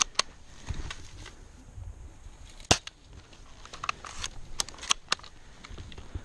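Airsoft guns firing scattered single shots, heard as sharp snaps at irregular intervals, the loudest a little under three seconds in.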